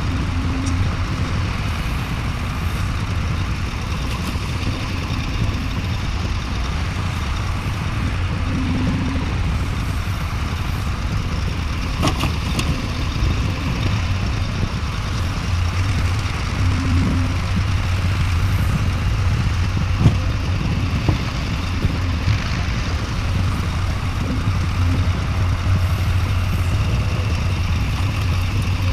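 Heavy diesel engine of a Sumitomo SH350 hydraulic excavator running steadily under load while it loads a dump truck, with a couple of sharp knocks partway through.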